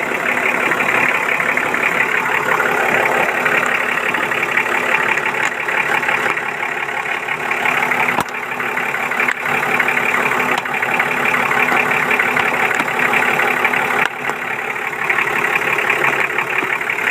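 Vehicle engine idling steadily after being started on a jumper battery; the engine is a hard starter, put down to a low battery and a contaminated fuel filter. A single sharp click sounds about eight seconds in.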